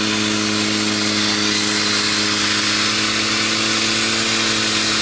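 3D-printed Tesla turbine spinning on compressed air: a steady hum with a strong hiss of air. The builder takes the hiss for too much air escaping through the turbine's four open holes, so it is not building pressure.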